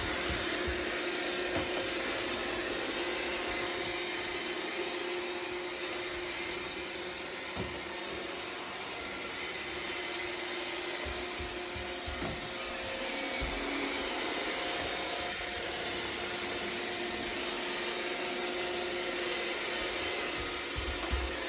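iRobot robot vacuum running with a steady whirring hum, with a few soft low thumps along the way.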